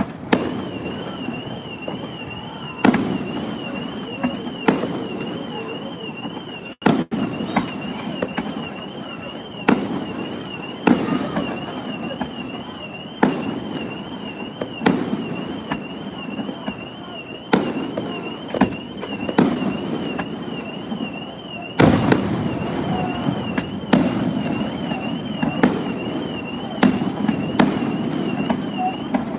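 Aerial fireworks bursting, sharp bangs every second or two, each trailing off in an echo. Under them runs a steady high warbling alarm tone, wavering about twice a second.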